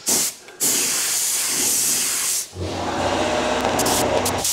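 Gravity-feed spray gun hissing as compressed air atomises automotive base coat onto a panel. A short burst comes first, then a steady spray that stops briefly about two and a half seconds in and starts again, with a low hum running under it after the restart.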